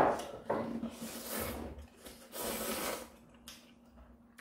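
Spicy ramyeon noodles slurped from a bowl in several short, noisy sucks with gaps between them, after a sudden sharp sound at the very start.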